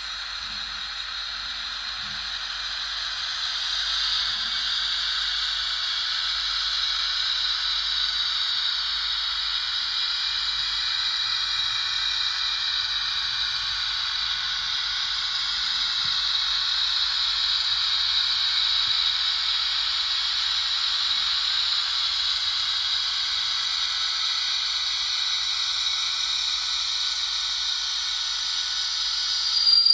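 Steady hissing, rushing noise played by the DCC sound decoder of a Piko HO Vossloh G6 model locomotive through its small speaker, with no bass.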